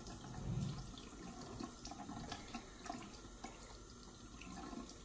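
Bathroom sink faucet running in a thin stream, a faint steady splash of water into the basin.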